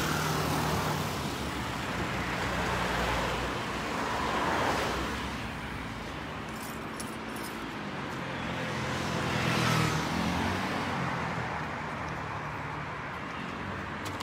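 Street traffic: a steady engine hum with a vehicle swelling past about four seconds in and another near ten seconds, and a few faint ticks around seven seconds.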